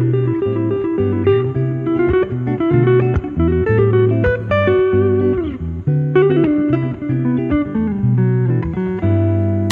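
Background music: a guitar melody with some sliding notes over a steady bass line.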